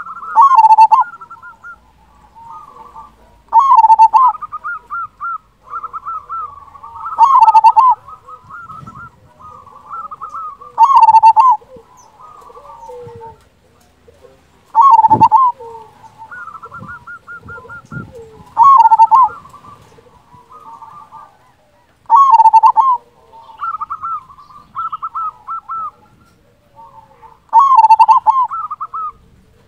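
Zebra dove (perkutut) singing its loud cooing song. A rolling phrase of coos comes about every four seconds, with softer trilled coos in between.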